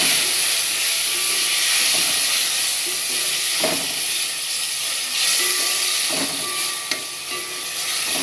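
Freshly added chopped tomatoes and onions sizzling in hot oil in a metal pot, stirred with a spatula that scrapes and knocks against the pot several times, with one sharp click near the end.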